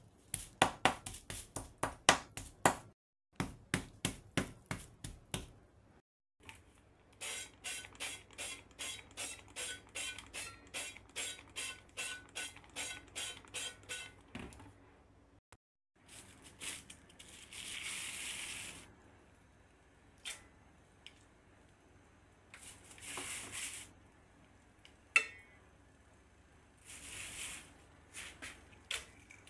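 A metal meat tenderizer pounding raw chicken breast through a plastic bag, about three to five rapid knocks a second for roughly the first fourteen seconds. Then cooking oil is sprayed into the pan in three short hisses.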